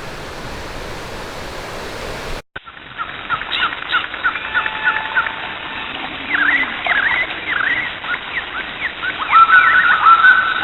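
A steady rushing noise, then an abrupt cut about two seconds in to birds singing and chirping: many short notes and quick whistled sweeps from several birds, thickening near the end.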